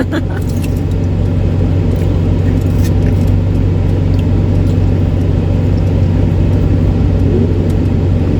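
Steady low hum of a car's engine running, heard from inside the cabin, with a few light clicks near the start.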